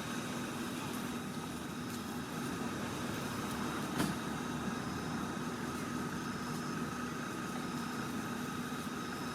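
A steady mechanical hum with a few constant tones, with a single sharp click about four seconds in.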